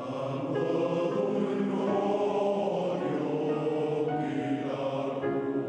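Welsh male voice choir singing in many-part harmony, holding long chords that shift every second or so.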